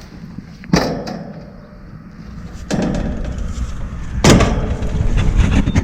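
Sheet-metal top panel of a Lennox condenser being lifted and set back down, knocking against the cabinet: three knocks, the last the loudest, with rattling and scraping of metal between the later ones.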